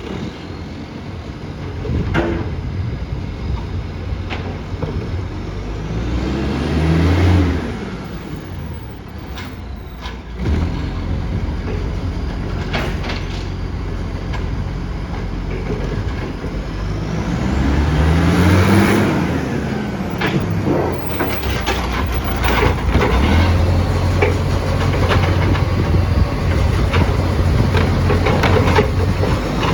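Garbage truck engine running with a massive exhaust leak. Its note rises and falls back twice, over a steady low drone, with several sharp knocks and clanks in between.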